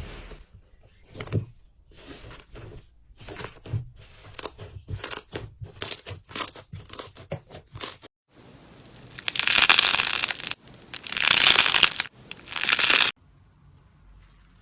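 Slime being squeezed and played with by hand: a quick run of short sticky pops and clicks, then about four seconds of loud, dense crackling and crunching that cuts off suddenly.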